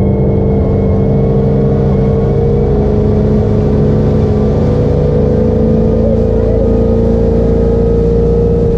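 MerCruiser sterndrive engine of a Chris-Craft cuddy cabin boat running at a steady high speed under load, towing a wakeboarder, with the rush of water from the wake behind it.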